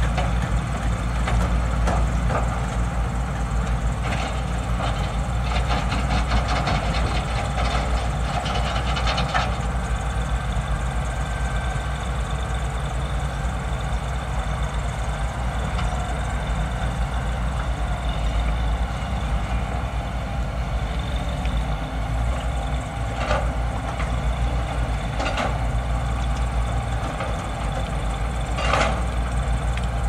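Diesel engines of several Caterpillar hydraulic excavators running steadily, with a quick run of clattering from about four to nine seconds in and a few sharp clanks in the last several seconds.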